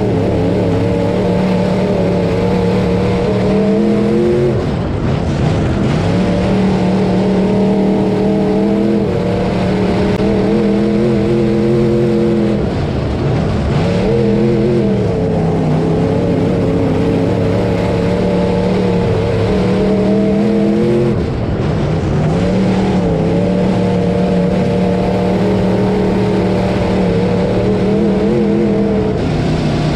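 Dirt-track Hot Mod race car's engine at racing speed, heard from inside the cockpit. The note holds steady at high revs, then dips and climbs back about four times as the driver lifts and gets back on the throttle for the corners.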